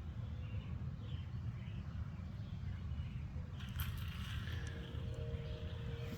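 A steady low rumble, then about three and a half seconds in a brief rustle as the rubber-band-powered plastic toy helicopter is launched, followed by the steady whir of its spinning rotor blades.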